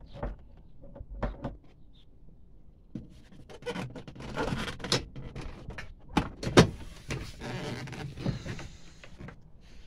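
Manual window winder on a car door being turned by hand, the glass sliding in its channel with a rasping scrape and scattered clicks. The loudest click comes about six and a half seconds in.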